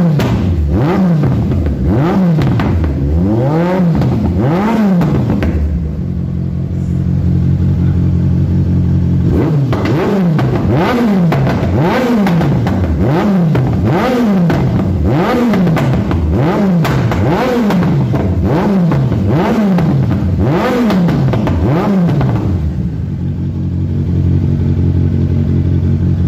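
Kawasaki Z1000's inline-four engine revved through an aftermarket exhaust in quick repeated blips, about one a second, the pitch rising and falling with each, with sharp pops and crackles from the exhaust among the blips. It drops to a steady idle about six seconds in, revs again for about twelve seconds, and settles back to idle near the end.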